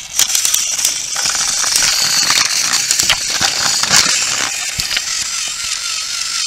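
Small plastic toy pieces being handled: a busy run of clicks, clacks and rattles. A faint wavering tone comes in near the end.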